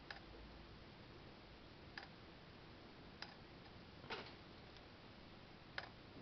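Needle of a transistorized electroscope's analog meter ticking against its full-scale stop: five sharp clicks at uneven intervals of one to two seconds, the one about four seconds in the loudest. The electret is still strongly charged and drives the meter to full scale.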